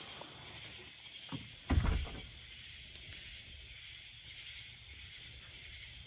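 Footsteps on a wooden deck: a soft thump and then a heavier one about two seconds in, over a steady high hiss.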